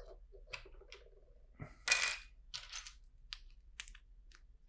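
Plastic LEGO pieces clicking and clattering as they are handled, a handful of small sharp clicks with one louder clatter about two seconds in.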